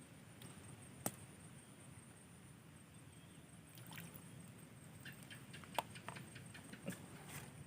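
Faint outdoor ambience: a steady high insect trill with scattered small clicks and taps, a sharp one about a second in and a cluster a little after the middle.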